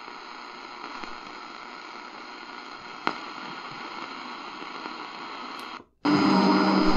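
C.Crane CCRadio SW portable radio hissing with static on an empty frequency at the bottom of the AM medium wave band, with a single click about three seconds in. Near the end the sound cuts out for an instant as the receiver is tuned up, then a strong station on 530 kHz comes in much louder.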